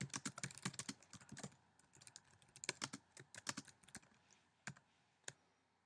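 Keys on a computer keyboard being typed in quick bursts of clicks as a short sentence is entered, thinning to a couple of single keystrokes near the end.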